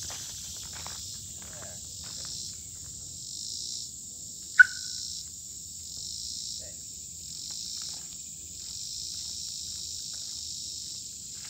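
Steady high-pitched insect chorus in summer woodland, swelling and fading in waves about once a second. About four and a half seconds in comes a single short, sharp chirp, the loudest sound here.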